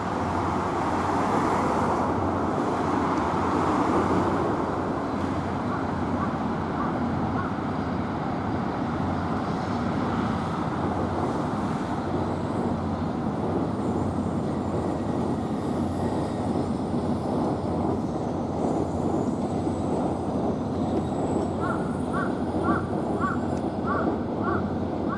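N700A Shinkansen train running into the platform, a steady rumble that is loudest at first and then eases as it slows. Near the end comes a run of short high chirps, about two or three a second.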